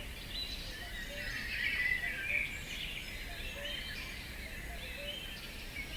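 Many small birds chirping and twittering at once in a continuous dense chorus.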